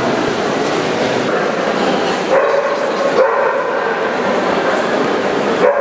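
Dogs barking a few times over the steady background noise of a large, busy indoor hall.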